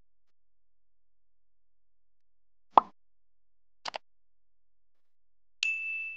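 Sound effects of a like-and-subscribe animation: a single pop, then a quick double mouse click about a second later, then a bell ding that rings out near the end.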